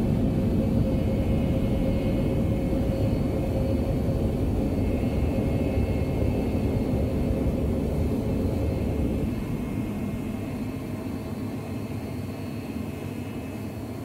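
Animated spaceship engine sound effect: a steady low rumble with a faint high steady tone over it. It thins out and fades about ten seconds in.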